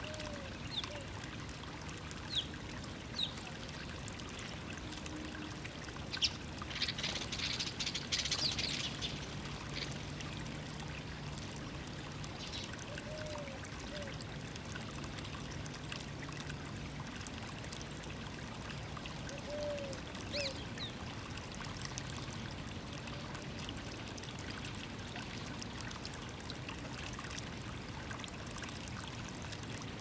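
Steady rushing background noise with scattered single high chirps from house sparrows feeding on the ground, and a brief flurry of chirping about seven seconds in. A soft, low two-note call comes three or four times, several seconds apart.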